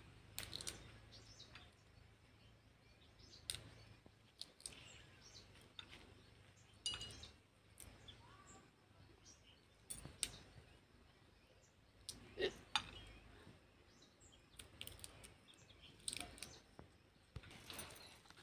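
Faint, scattered cracks and clicks of pods being split open and shelled by hand, a dozen or so snaps spread irregularly over a low background.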